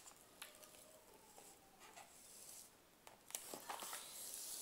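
Plastic film and paper rustling and crinkling as a rolled diamond-painting canvas and its protective paper sheet are handled. It is faint at first and louder from about three seconds in.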